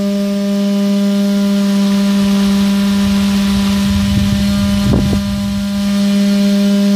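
Small DC motor driving a toy fan, running at a steady speed with a loud, even hum. About four to five seconds in there is a short low rumble and a tap.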